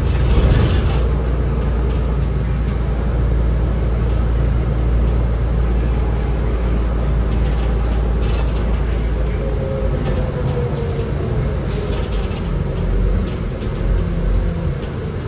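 Inside a 2005 New Flyer C40LF transit bus under way: the steady low drone of its Cummins Westport C Gas Plus natural-gas engine and Allison automatic transmission. About ten seconds in, the drone changes and a faint tone glides down in pitch.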